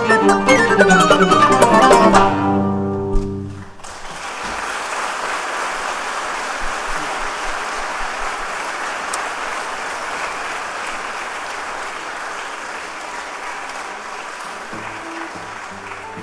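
A string ensemble with cello and plucked strings finishes an Arabic classical piece with a descending run and a held final chord. About three seconds in the music stops and audience applause follows, slowly fading.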